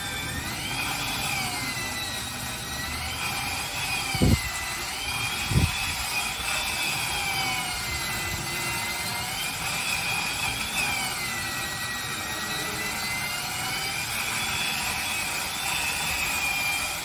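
Wood chipper running, with a high whine that wavers slowly up and down in pitch. Two heavy thumps come a little over a second apart, about four seconds in.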